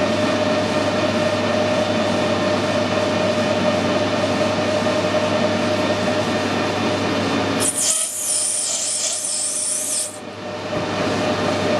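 Metal lathe running under power while a turning tool takes a cut along a bar: a steady machine hum with one steady tone. About eight seconds in, a high hiss takes over for about two seconds, then the steady running returns.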